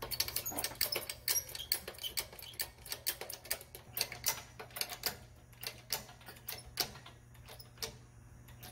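Rapid, irregular clicking and ticking from a chain lifting rig as it hoists a car on a 3D printed plastic nut and bolt. The clicks come thickest at first and thin out toward the end.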